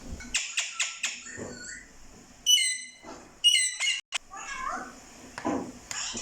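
Pet parrot calling and chattering: a run of short harsh calls, with two loud squawks about two and a half and three and a half seconds in.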